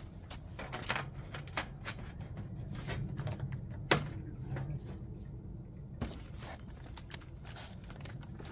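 Metal flue pipe parts being handled as a chimney T-piece is fitted onto the stovepipe: scattered light clicks and knocks, the sharpest about four seconds in, over a low steady hum.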